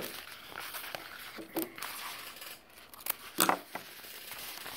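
Leather and heavy webbing being handled and cut with scissors: rustling and scraping, with a few short sharp snips, the loudest about three and a half seconds in.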